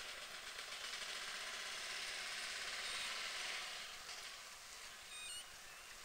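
Outdoor ambience: a steady hiss that swells around the middle and eases off after about four seconds, with a few faint high chirps about five seconds in.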